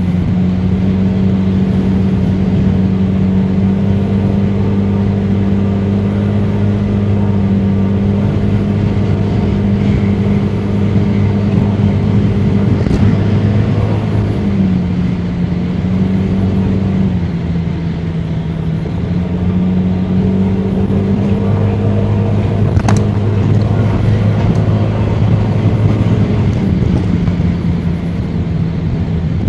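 Honda Forza 300 scooter's single-cylinder engine running steadily under way, with road and wind noise. The engine note drops a little twice partway through and again near the end, and there is a single sharp tick late on.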